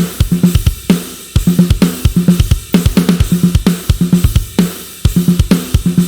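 Sampled aggressive rock drum kit from GetGood Drums' One Kit Wonder Kontakt library playing a heavy groove: rapid runs of kick-drum strokes under snare hits and cymbals, broken by a few single accented hits that ring out.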